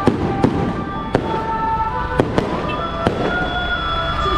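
Firecrackers going off in scattered sharp bangs, a couple a second at most, over music with long held notes.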